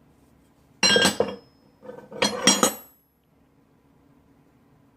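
Large steel engineer's wrenches clinking and clanking against each other as they are handled, in two bursts about a second apart, each with a short metallic ring.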